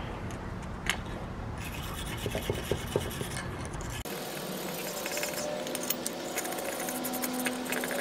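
A hand tool scrubbing the surface of an aluminum angle in quick scratching strokes from about halfway on, prepping the metal for a braze with aluminum rods. Before that, a low steady hum with a few light taps.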